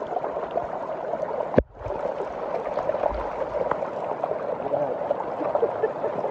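A stream of water flowing and gurgling steadily. There is a sharp click about one and a half seconds in, followed by a brief gap in the sound.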